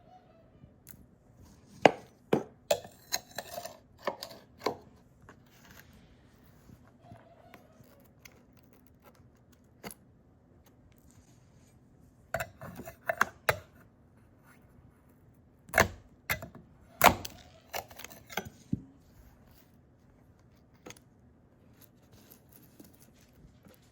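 Hard objects being handled and set down: scattered sharp knocks and clinks in small clusters, the loudest two a little past halfway, over a faint steady hum.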